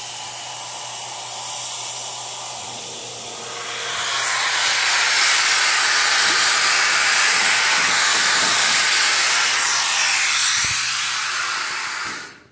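Steady hiss of compressed air from the plasma table's air supply over a low hum. It grows much louder about four seconds in and cuts off abruptly near the end.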